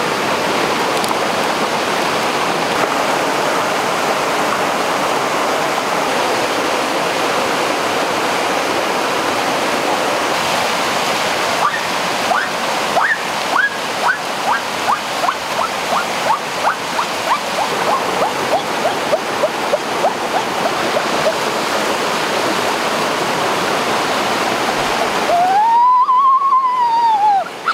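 Rushing water of a rocky jungle stream, loud and steady. Midway a run of short chirps, about two or three a second, steps down in pitch. Near the end the rush briefly drops away and one long rising-and-falling call is heard.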